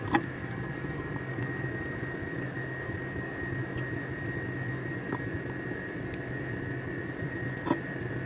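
Steady background hum and hiss with a thin, high, constant whine. Two sharp clicks stand out, one just after the start and one near the end.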